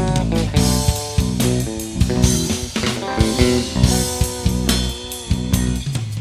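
Background music: a band track with guitar, bass guitar and a drum kit keeping a steady beat.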